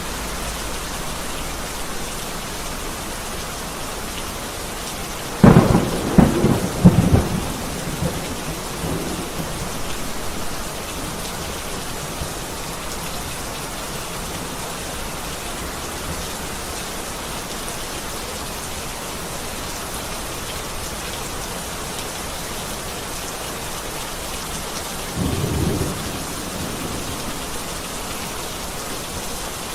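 Heavy rain falling steadily, with a loud peal of thunder about five seconds in, several sharp cracks over a couple of seconds before it rumbles off, and a second, fainter rumble of thunder near the end.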